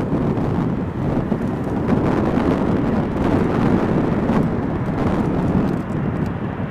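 Airbus A380 approaching on final to land, its four turbofan engines making a steady, deep rushing noise.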